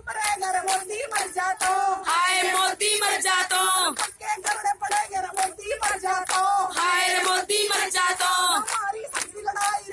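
Women singing into a hand-held microphone, the voice amplified and continuous.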